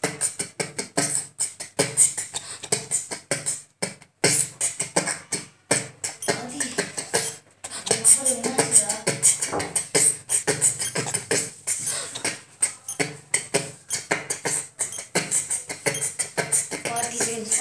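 A child's voice mimicry made of rapid percussive mouth sounds, clicks and pops, in quick succession like beatboxing, with a few brief pauses.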